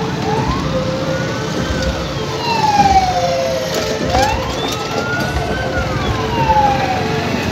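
A siren wailing in slow cycles, rising and then falling in pitch about every four seconds, twice, over the rumble of street traffic.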